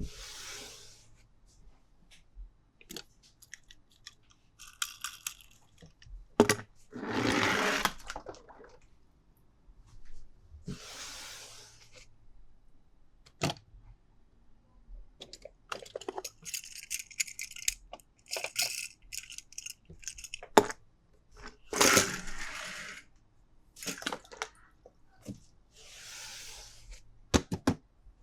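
Toy packaging being handled and opened: bursts of crinkling and tearing, mixed with sharp clicks and taps of hard plastic pieces.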